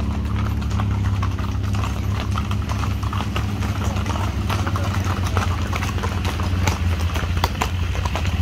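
Hoofbeats of a group of ridden horses: a dense, irregular run of overlapping clip-clops over a steady low hum.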